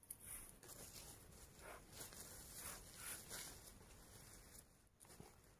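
Faint rustling of a woven plastic feed sack as its neck is gathered and tied shut with baling twine.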